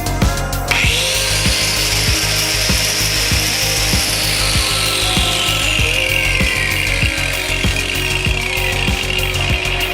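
Zubr 125 mm angle grinder cutting or grinding. It bites in about a second in, and its high whine sinks slowly in pitch over several seconds as the disc takes the load. Background music with a steady beat plays under it.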